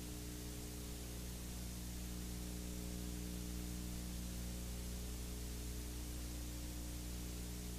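Steady videotape hiss with a low, even electrical hum from a transfer of an old video master, with no other sound.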